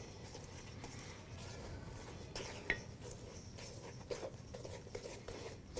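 Cookie dough being mixed by hand in a stainless steel bowl: faint stirring and scraping, with a few light knocks against the metal.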